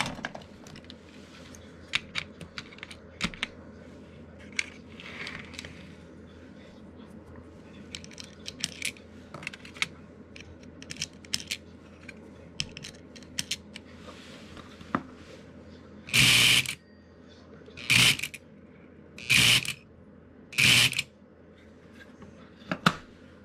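Light clicks and taps of small metal parts being handled, then four short loud buzzes about a second and a half apart from the Lionel 3472 milk car's unloading solenoid being energised, working the pusher that shoves milk cans out onto the platform.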